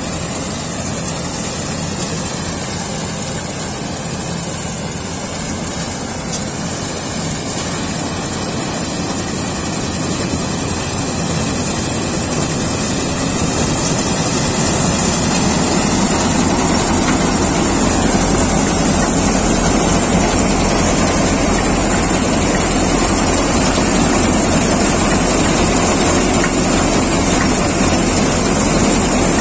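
Kartar 4000 combine harvester running steadily as it cuts paddy: engine, header reel and threshing machinery together, growing louder about halfway through as the machine comes close.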